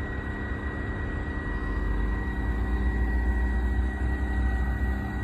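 Steady machinery hum from an industrial plant, several fixed tones over a noisy drone, with a low rumble that grows stronger about two seconds in.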